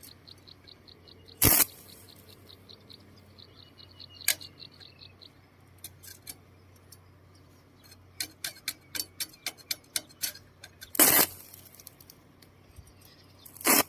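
Electric arcing from wires touched across batteries: three short, loud crackling bursts of sparks, with a quick run of small clicks and snaps between the second and third.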